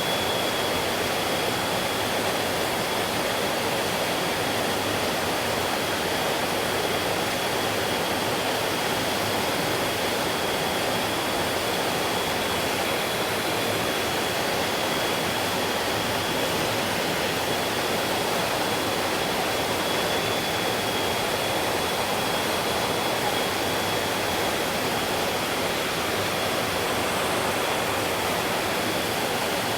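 Mountain stream rushing steadily over rocks, an even wash of flowing water. A thin, steady high tone sits under it throughout.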